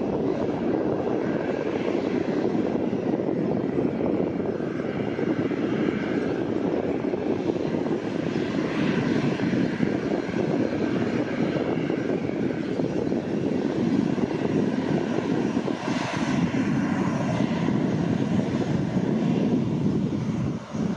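Jet engines of a Boeing 737 airliner at low taxi power as it rolls slowly by: a steady rumble with a faint whine, turning brighter and sharper about three quarters of the way through.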